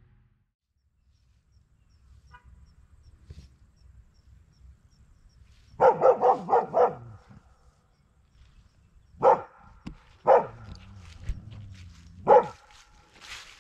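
A dog barking: a quick run of about five barks, then three single barks a second or two apart.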